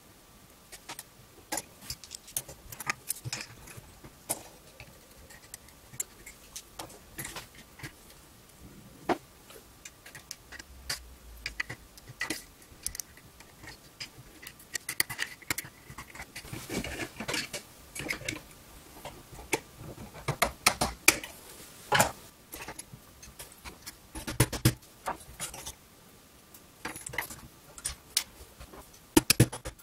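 Precision screwdriver working against the metal parts of a rotary encoder clamped in a vise: irregular small metallic clicks, taps and scrapes, coming in denser clusters in the second half, as the stuck cast-metal housing is worked loose.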